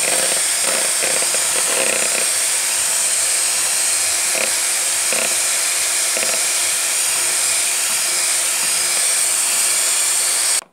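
Electric hand mixer running steadily, its beaters turning in a bowl of cream and beaten egg whites; the motor is switched off and stops suddenly near the end.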